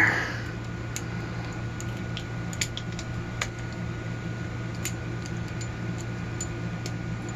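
Scattered small metallic clicks of a screwdriver with an Allen bit turning a tight, Loctite-set screw out of a padlock body, over a steady low hum.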